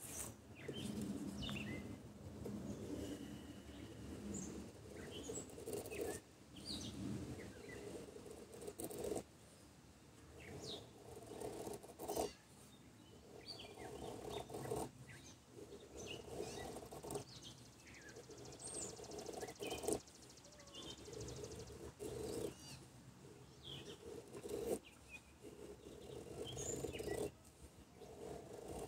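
ESEE RB3 knife shaving thin curls off a soft pine stick in long, repeated strokes, one every couple of seconds, with a few sharp knocks between them. Small birds chirp in the background.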